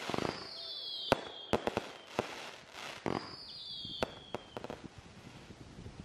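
Fireworks going off: whistles that slide down in pitch, mixed with a string of sharp bangs and crackles, thinning out near the end.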